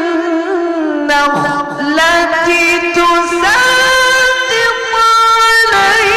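Singing in maqam Nahawand: long held notes that step from pitch to pitch, with ornamented turns between them.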